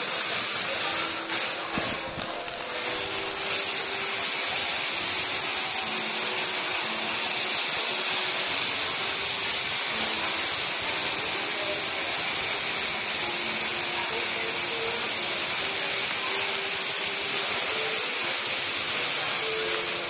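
Steady, loud, high-pitched hiss that holds an even level throughout, with no clear source shown.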